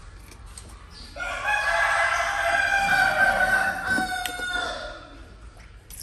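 A rooster crowing once: a single long pitched crow that starts about a second in and lasts about four seconds.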